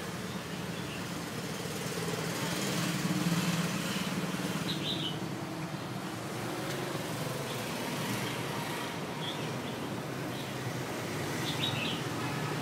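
Steady background hum of street traffic, with a few brief high chirps about five, nine and eleven seconds in.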